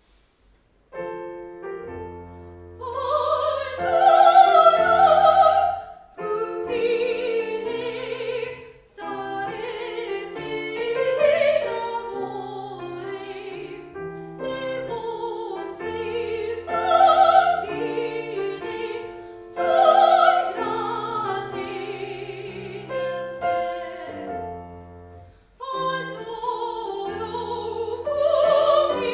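Classical, operatic-style solo singing with piano accompaniment, starting about a second in.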